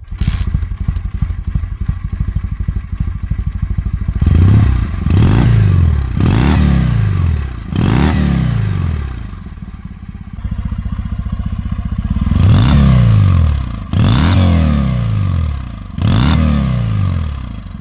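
Kawasaki W650's air-cooled parallel-twin engine running through exhausts with the baffles removed. It idles steadily, then is revved in a series of quick throttle blips, each rising and falling in pitch, with a short return to idle between two groups.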